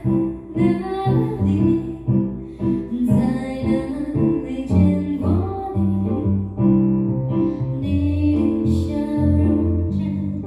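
A woman singing into a microphone, accompanied by a Nord Electro 6D stage keyboard played live.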